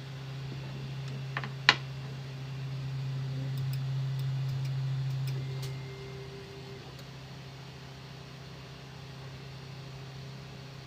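A steady low mechanical hum that swells for a few seconds and eases off about six seconds in, with a sharp click just under two seconds in.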